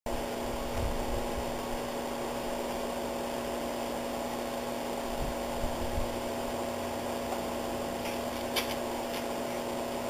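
A steady electrical hum throughout, with a few soft low knocks; about eight and a half seconds in, a short crackling rip of masking tape being pulled off the roll.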